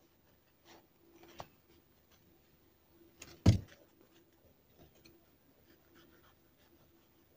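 Tailor's scissors snipping and rustling through a paper pattern, faint, with one loud knock on the table about halfway through.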